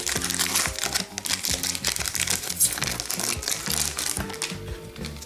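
Foil trading-card pack wrapper crinkling as it is pulled open and handled, over background music.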